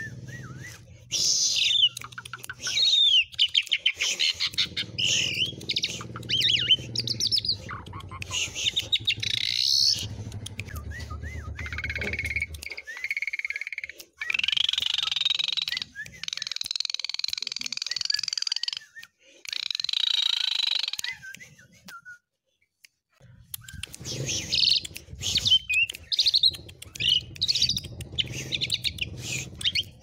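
Asian pied starling singing a long, varied song packed with learned sounds ('isian'): quick whistles and trills alternate with harsh, scratchy chattering phrases, with a brief pause about two-thirds of the way through.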